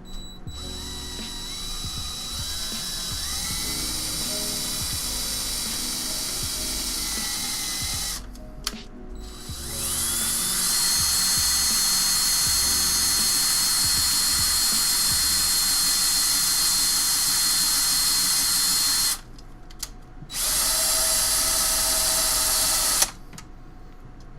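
Power drill boring pilot holes in a PC case, run in three bursts of several seconds with short pauses between; on the second burst the motor whine climbs as it spins up.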